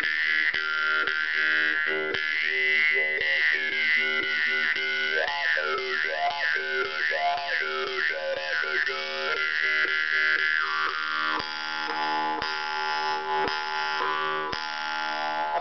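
Khomus (Yakut jaw harp) played in a free improvisation: a steady buzzing drone kept going by regular plucks. From about three seconds in to about ten seconds in, the overtones above the drone glide up and down in a quick, wavering melody, then settle back to a steadier twang.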